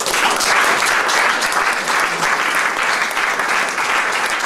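Audience applauding, a dense steady wash of many hands clapping.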